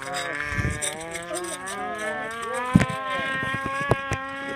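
Hand-cranked air raid siren winding up: its wail rises in pitch over the first three seconds or so, then holds steady. A few sharp knocks sound near the end.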